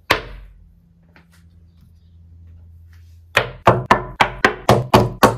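Wooden stamp block set down on a table with a single thunk, then after a pause a quick run of about nine knocks, some four a second, as more pottery stamps are put down one after another.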